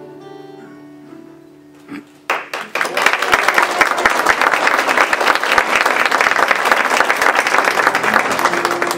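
A guitar's last notes fade out, then about two seconds in an audience breaks into loud, steady clapping and applause.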